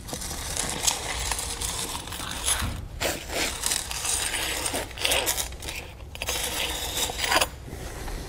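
A paver marking tool's scribe point scratching a cut line across clay pavers as the tool is slid along the edge restraint. There are three long strokes with short breaks between them, and it stops about a second before the end.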